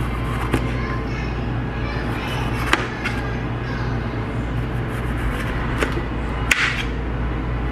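A kitchen knife cutting through a green bell pepper and tapping on a plastic cutting board: a few scattered sharp clicks, the loudest about six and a half seconds in, over a steady low hum.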